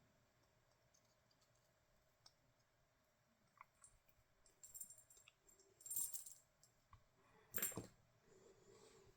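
Faint handling noises from work on an e-bike battery's connector: a few small clicks and short rustles, with two sharper clicks about six and seven and a half seconds in.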